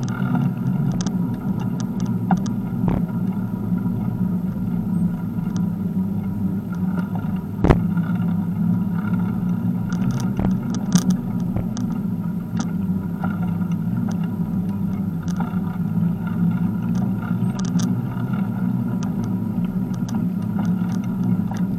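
Bicycle rolling along an asphalt path, heard from a mount on the bike: a steady low rumble of tyres and wind, with scattered small clicks and rattles from bumps and a sharper knock about eight seconds in.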